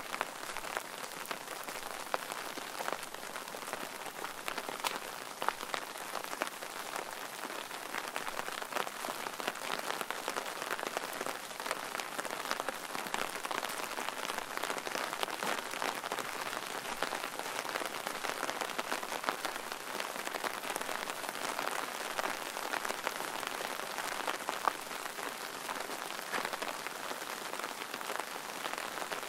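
Steady rain falling, with many small drop hits close by.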